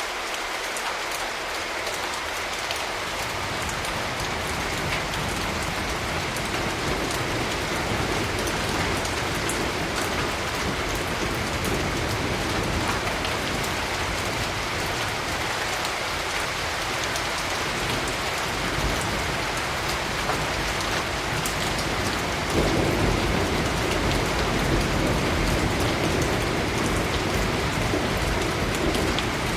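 Steady rain falling, with a low rumble of thunder that grows louder about three quarters of the way through and rolls on.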